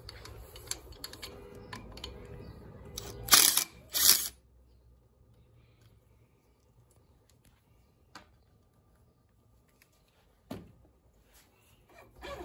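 Clicks and clatter of tools and parts being handled while a mini bike's clutch is taken off, with two short, loud bursts of noise about three and four seconds in. After that it is nearly quiet apart from two faint single knocks.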